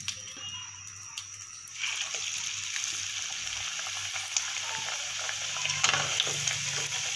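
Somas pastry deep-frying in hot oil in a pan. A faint sizzle turns, about two seconds in, into a louder, steady frying hiss as the oil bubbles up around the pastry.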